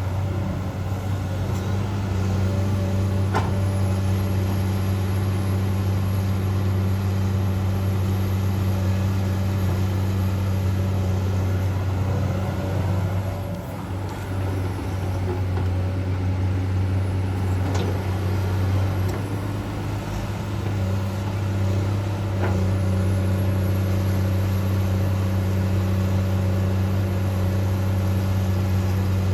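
Komatsu PC200-8 excavator's diesel engine running steadily under working load while it digs, with a few faint clanks. The engine eases off briefly twice, about 13 and 20 seconds in.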